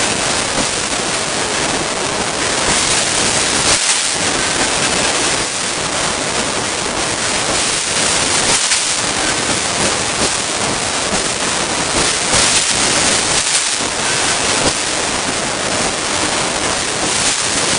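Loud, steady rush of air from an automatic screen printing line with a UV curing unit, its fans and blowers running, dipping briefly about every five seconds.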